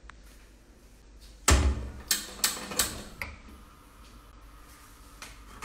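A gas stove burner being lit under a frying pan: a thump about a second and a half in, then three or four sharp ignition clicks about a third of a second apart, which stop once the burner catches.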